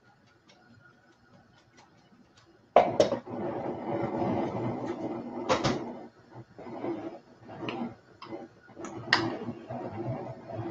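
Gas range burner flame sputtering and rumbling under a pot. It starts suddenly about three seconds in and then swells and dips irregularly, with a few sharp clicks. The flame is acting up in a way the cook can't explain and says sounds like it's getting a draft.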